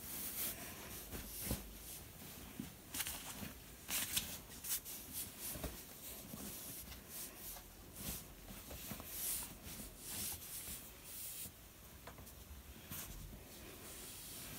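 Cloth rustling in irregular bursts as a baby blanket and doll clothes are moved about and handled.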